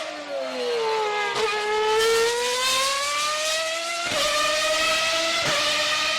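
Formula 1 car engine at high revs. The pitch sags for the first second or so, then climbs steadily and drops sharply at quick gear upshifts about four and about five and a half seconds in.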